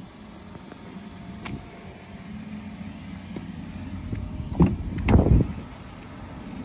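A 2020 Kia Forte's front door being opened. Its latch clicks sharply when the handle is pulled, about two-thirds of the way in, followed by a short cluster of louder clicks and a thud as the door releases and swings open.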